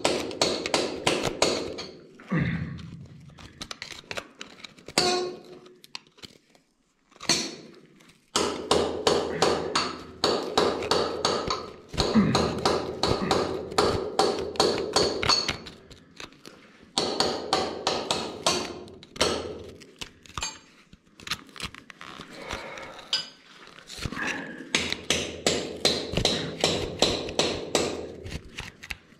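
Long thin steel digging tool picking and prying at pegmatite rock, metal on stone, to free a beryl crystal: fast runs of sharp taps and scrapes, pausing briefly about six seconds in.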